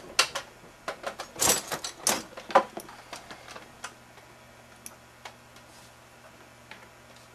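Clicks and knocks of a tub vacuum's plastic housing, wires and clips being handled during teardown: a busy run of sharp clicks in the first three seconds, the loudest near the middle of that run, then a few scattered light clicks.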